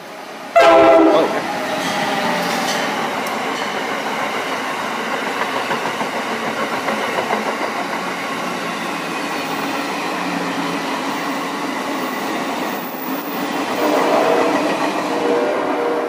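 An Amtrak electric train's horn blasts suddenly and very loud about half a second in, then the train runs past at speed with a steady rush and the clatter of wheels over the rails. A second, quieter horn sound comes near the end as the train recedes.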